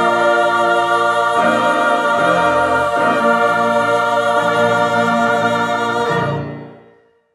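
Women's choir singing with piano accompaniment, the voices layered from separate home recordings, moving through a few chord changes and then holding a long last chord that fades away near the end.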